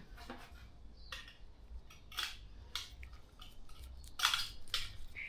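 Gloved hands handling a billet high-flow turbocharger and small metal parts: a scatter of short clicks, clinks and rustles, the loudest cluster about four seconds in.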